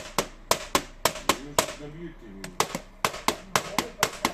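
Rapid, irregular sharp knocks on a hard surface, about four a second, with a short break in the middle where a voice murmurs.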